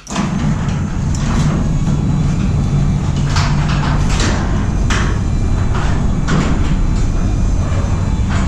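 Genie 1.25 HP belt-drive garage door opener running, lowering a sectional steel garage door: a steady motor hum with the rumble of the moving door. Several sharp clacks come along the way as the door travels down.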